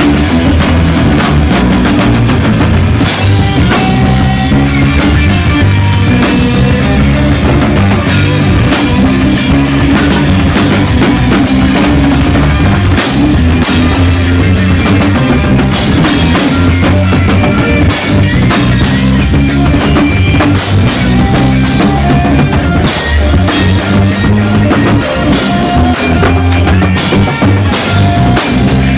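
Live rock band playing an instrumental passage: drum kit, electric bass, electric guitar and keyboard together, loud and bass-heavy with a steady beat.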